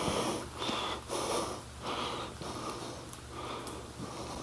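A person's heavy breathing close to the microphone, a quick run of noisy breaths in and out.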